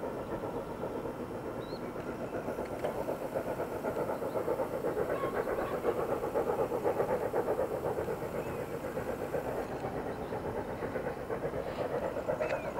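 Distant steam locomotive, S&DJR 7F 2-8-0 No. 88, working hard up a gradient, its exhaust a steady, rapid chuffing that grows a little louder as it comes into view.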